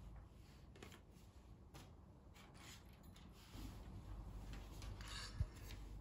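Faint handling sounds: soft rustles and light clicks of paper and small objects being moved, with a brief scrape and a single soft low thump near the end.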